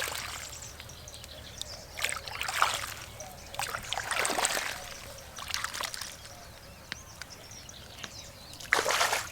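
Water sloshing and splashing in irregular bursts, several times over a low steady background.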